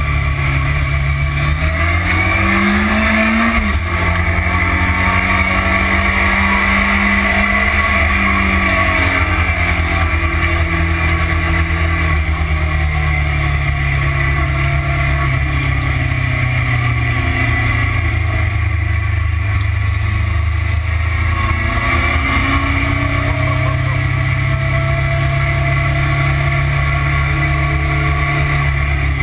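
Motorcycle engine running hard at speed with wind rush on the microphone. The engine note climbs over the first few seconds, drops abruptly about four seconds in, eases lower, then holds steady.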